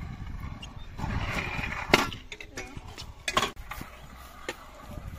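Skateboard rolling with a low rumble, then two sharp clacks of the board, about two seconds in and again about a second and a half later, as a trick is tried on flat ground.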